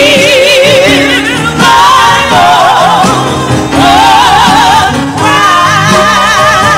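Women's gospel vocal group singing long held notes with wide, wavering vibrato over a backing band.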